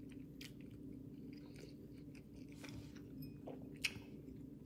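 Quiet chewing of a glazed donut, with small wet mouth clicks, over a steady low hum. One sharp click about four seconds in.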